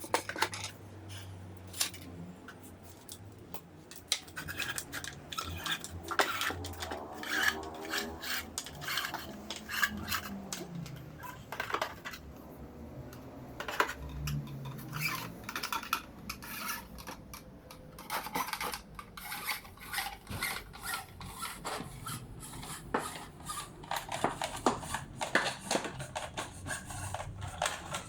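Hands working on small parts: many short clicks, knocks and scrapes of tools and hard plastic and metal pieces being handled and fitted.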